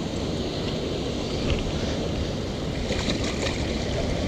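Ocean surf washing and foaming around shoreline rocks, with wind rumbling on the microphone. A few faint clicks come about three seconds in.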